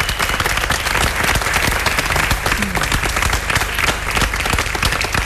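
A crowd applauding, many hands clapping at once.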